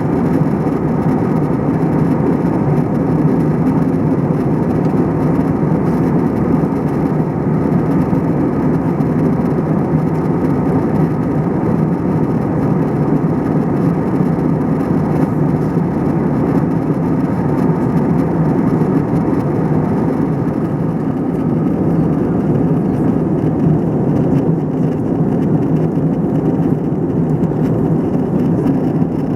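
Steady cabin noise of an Airbus A321ceo in flight: a constant drone of engines and airflow, strongest in the low range, with no change in level.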